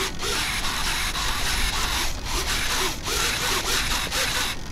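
Servos driving the flaps of a large RC Boeing 777-9X model airliner, a whirring, rubbing mechanical sound in stretches of about a second with short pauses between, over a steady low rumble.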